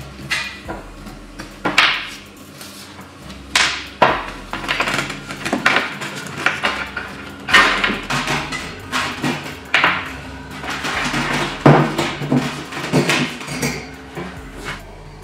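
Irregular metal knocks and clanks of hand tools striking and handling metal parts, several sharp strikes a second or two apart, over background music.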